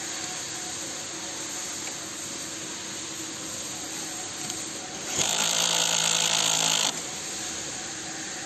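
A power tool runs in one loud burst of about a second and a half, starting about five seconds in and cutting off suddenly, over a steady workshop hum.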